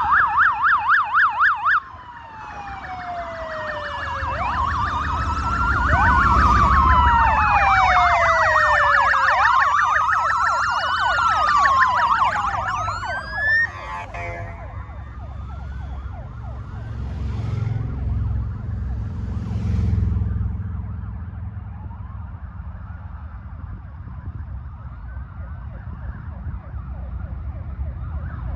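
Emergency sirens, first a fast yelp, then several wailing at once in overlapping rising and falling tones. They stop about halfway through with a last rising whoop. After that comes the low rumble of a column of big touring motorcycles riding past, loudest a few seconds later.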